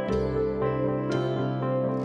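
Instrumental background music: sustained notes over a steady low bass, with a new chord struck about a second in.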